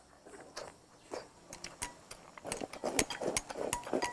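Eating sounds: wooden chopsticks clicking against a ceramic bowl as food is shovelled into the mouth, with chewing, growing busier about halfway in.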